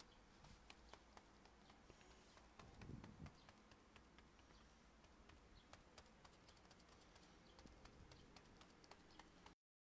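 Near silence with faint, irregular soft taps: a foam-sponge stencil dauber pouncing acrylic paint through a stencil onto a canvas bag. The sound cuts out completely just before the end.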